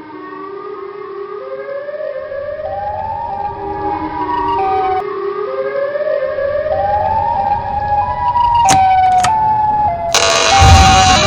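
Suspense film-score tones: several layered notes climb upward in steps and swell steadily louder, like a slow siren. Two short, high pings come near the nine-second mark, and a sudden loud burst of noise hits about ten seconds in.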